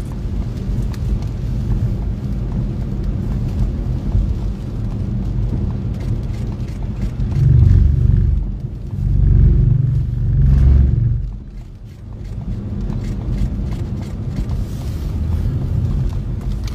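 Wind buffeting the microphone during a tornado-producing storm: a steady low rumble that surges louder in several gusts around the middle.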